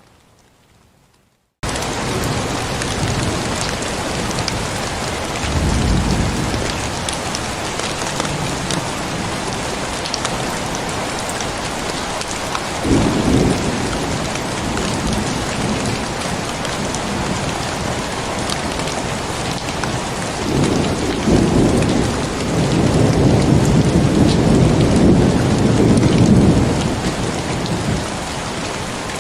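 Steady heavy rain, which cuts in suddenly about a second and a half in, with low rolls of thunder: short ones about 6 and 13 seconds in, and a longer, louder roll in the last third.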